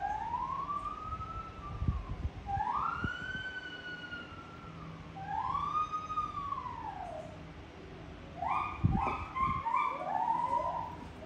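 An animal's long whooping calls, three of them, each rising and then falling in pitch, followed near the end by a quicker run of shorter notes stepping downward.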